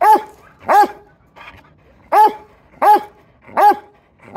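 A hound dog barking upward, five short pitched barks, each rising and falling in pitch, in a pair and then a run of three after a pause of about a second.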